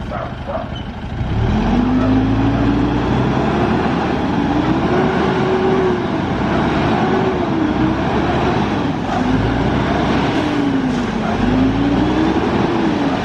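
Truck engine revving up and down repeatedly, starting about a second in.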